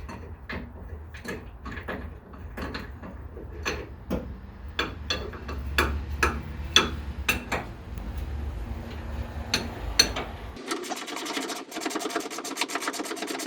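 Hand ratchet clicking as a shock mounting bolt is tightened down, in irregular clicks at first, then in a fast, even run of clicks about ten seconds in.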